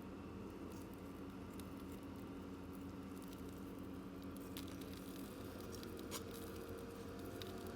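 A faint steady hum, its pitch pattern shifting about five seconds in, with a few scattered small clicks and taps.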